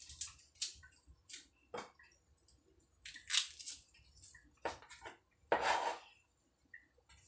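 Garlic bulb being broken apart and peeled by hand: irregular dry, papery crackles and rustles of the skins, with two louder crinkles about three and a half and five and a half seconds in.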